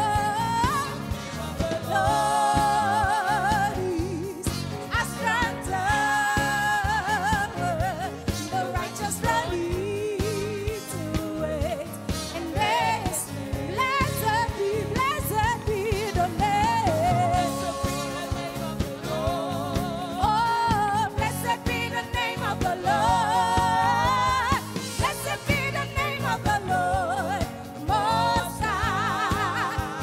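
Live gospel praise band: women's voices singing a worship song with wide vibrato over keyboards, guitars, bass and a drum kit.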